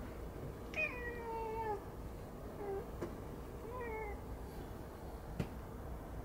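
A domestic cat's chirping calls as it watches a bird outside: three calls that fall in pitch, a long one about a second in, a short one, and another around four seconds in. A single sharp click follows near the end.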